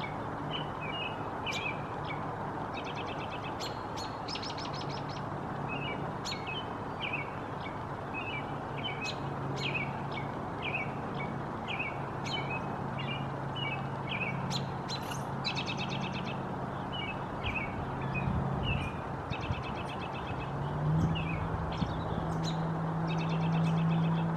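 Small wild birds chirping over and over, with a short rapid trill every few seconds, over a steady hiss of background noise. A low steady hum runs beneath and steps up slightly in pitch and loudness about 21 seconds in.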